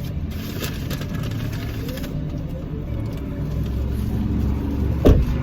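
Car engine idling, heard from inside the cabin as a steady low rumble, with faint music. A single dull thump comes about five seconds in.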